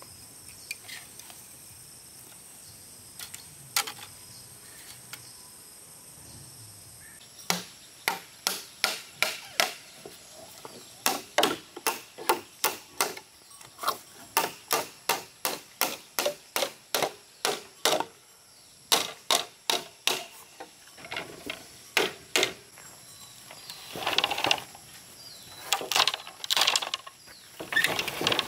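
Repeated hand-tool blows on wood, about two a second in runs with short pauses, starting several seconds in. Before them there is only a faint high steady whine.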